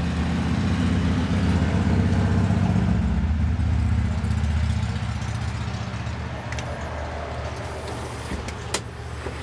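A vehicle engine idling, a steady low hum that eases off about halfway through, heard from inside a fire engine's cab. A sharp click near the end.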